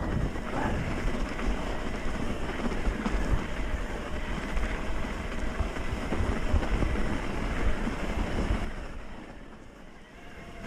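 Wind rushing over the microphone with a rolling rumble from riding an electric mountain bike on a trail. It eases off near the end.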